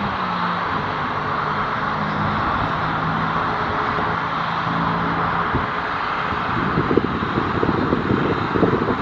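Boeing 737 MAX 8's CFM LEAP-1B jet engines at takeoff power, a loud steady rushing noise as the airliner departs. A rough, crackling low rumble joins in about seven seconds in.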